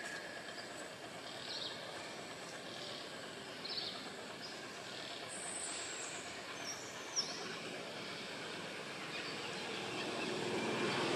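Outdoor ambience: a steady hiss of distant background noise, with a few faint short high chirps, one falling in pitch about seven seconds in.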